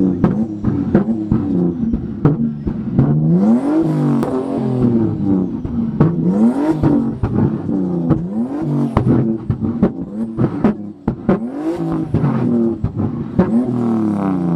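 Car engine revved over and over through its exhaust. Each rev climbs quickly in pitch and falls back, about one every one to two seconds, with short sharp pops in between.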